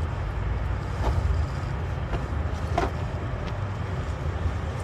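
Steady low rumble of a running vehicle engine, with a few faint short clicks.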